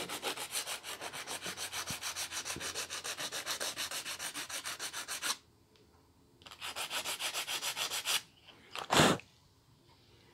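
Small shim rubbed back and forth on 180-grit sandpaper backed by a card, in quick even strokes about five a second, taking a little more off one end so it fits the nut slot. The sanding stops for about a second, runs again briefly, and a single thump sounds near the end.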